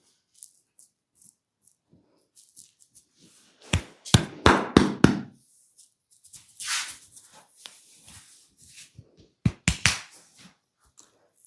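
Percussive massage strokes striking the body: a quick run of about six sharp knocks about four seconds in, a brief brushing rub around seven seconds, then another short run of knocks near the end.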